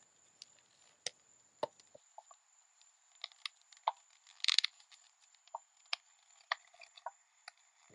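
Paracord being wrapped around a water bottle and drawn through the weave: faint scattered clicks and rubs of cord on the bottle, with a longer scrape about four and a half seconds in.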